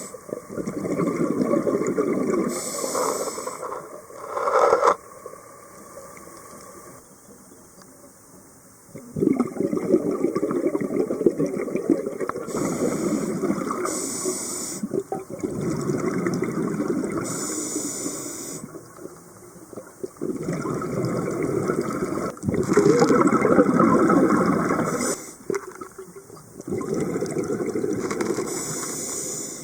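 Scuba diver breathing through a regulator: a hiss on each inhale, then a long gurgling rush of exhaled bubbles, repeated over several breaths with short pauses between them.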